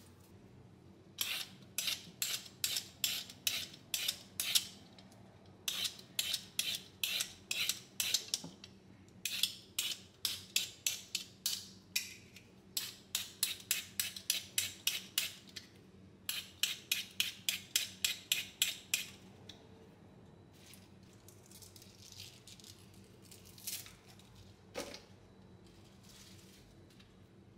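A vegetable peeler scraping down a carrot in quick repeated strokes, about two to three a second, in several runs of a few seconds each. Near the end come a couple of single snips from kitchen scissors trimming spinach.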